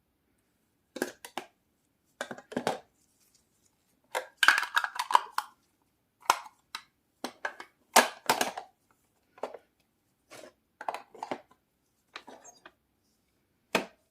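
Irregular groups of short knocks, clicks and clatters from hard objects being handled and set down.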